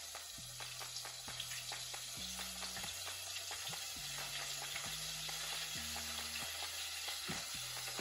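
Calamari rings frying in hot cooking oil: a steady sizzle with dense, irregular crackling.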